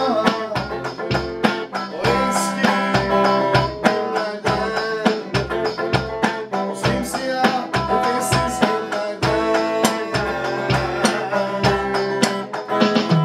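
Electric guitar playing a melody over an electronic drum kit keeping a steady beat.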